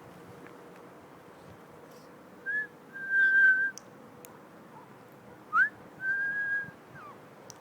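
A bird whistling two phrases of clear, pure notes. Each phrase is a short rising note followed by a long steady held tone, and the second ends with a falling note.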